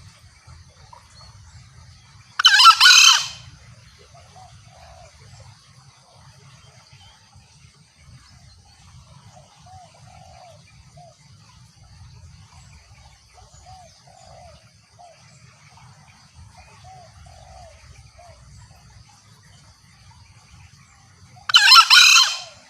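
Green junglefowl crowing: two short, shrill, harsh crows, one about two and a half seconds in and one near the end. In between, a steady high insect drone and faint small chirps.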